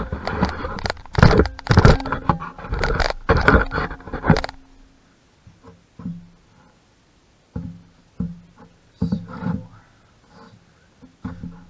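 Loud, rapid metal clanking and scraping of tools and engine parts being handled. About four and a half seconds in this stops, and faint plucked guitar music takes over.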